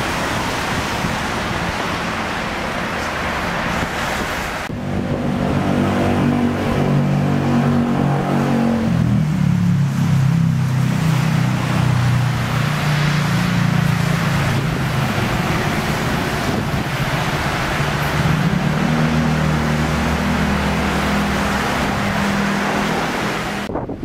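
Wind noise on the microphone over street traffic, then from about five seconds in a London bus engine running as the bus moves off or passes. Its note steps down about nine seconds in, fades, and a bus engine note builds again near the end.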